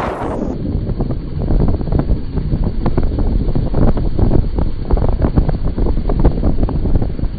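Wind buffeting the microphone on a moving motorcycle: a loud, continuous low rush with irregular gusts over the noise of the ride.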